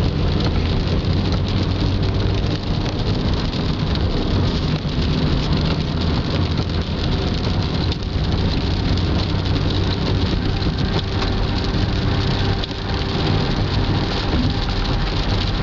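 Steady road noise inside a moving car's cabin on a wet highway: a low engine hum under the hiss of tyres on wet pavement and rain on the car.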